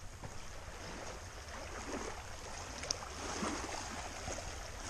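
Steady wind buffeting the microphone, with faint lapping of lake water at the shore. One brief tick about three seconds in.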